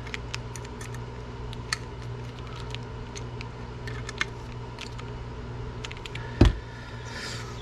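Small screws being tightened with a little driver bit, giving light, irregular clicks and taps, with one louder knock about six and a half seconds in. A fan hums steadily underneath.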